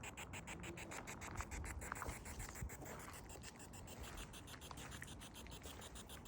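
Faint hiss pulsing in a fast, even rhythm of about eight beats a second, with a few faint scratches over it.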